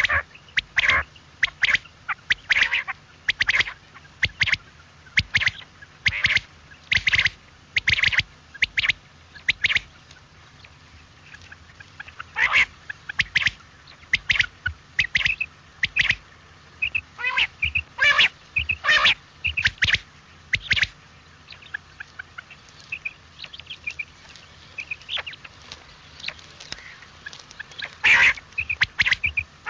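Common quail calling: short, sharp notes repeated in runs, with a quieter stretch of fainter notes in the second half.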